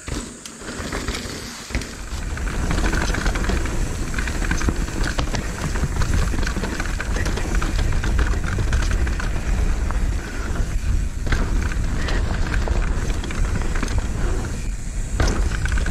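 Mountain bike descending a rough dirt trail: tyres on dirt and a constant clatter of chain and frame over bumps, with wind rumbling on the microphone. Quieter for about the first two seconds, then loud and continuous.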